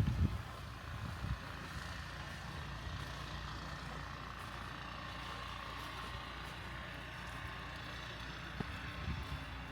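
Wind buffeting the microphone in the first second, then a steady low rumble with a faint even hum above it.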